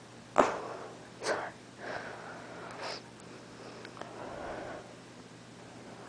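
A girl hiccuping sharply twice, about half a second in and again a second later, then breathing heavily and sniffing in between, with the microphone right at her face.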